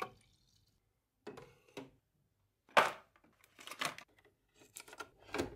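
Scattered clicks and knocks of hands working a De'Longhi capsule coffee machine and a cardboard box of coffee capsules, with one sharp click about three seconds in.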